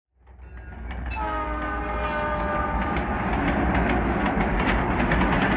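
A train's multi-tone horn sounds about a second in and lasts a couple of seconds, over the low rumble and clatter of a train running on the rails. The sound fades in from silence at the start.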